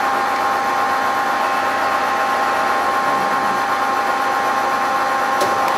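Cincinnati Cinova 80 universal milling machine's spindle drive running steadily: a constant hiss with a steady whine of two high tones from the gearing. A faint click sounds near the end.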